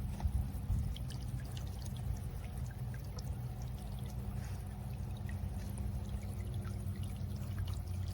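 Small solar birdbath fountain spraying water into its basin: a steady trickle with many small droplets splashing.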